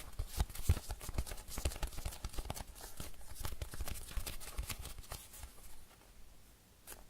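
Fingers squeezing and patting a slow-rising foam squishy toy shaped like a cheesecake: a dense run of soft, tacky taps and rustles that thins out after about five seconds.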